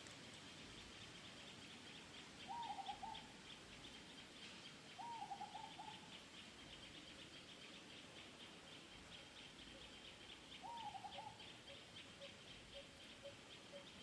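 A bird calls three times, each call a quick run of three or four falling notes, over a faint steady high pulsing of insects.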